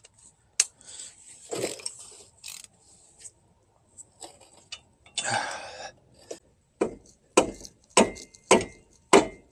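Breaker bar and 15 mm socket working a front wheel hub mounting bolt loose: scattered metal clicks and clunks, then a run of sharp knocks about every half second near the end.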